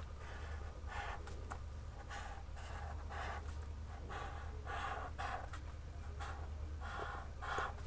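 Felt-tip marker pen scratching on paper as short strokes are drawn, a few strokes each second, over a low steady hum.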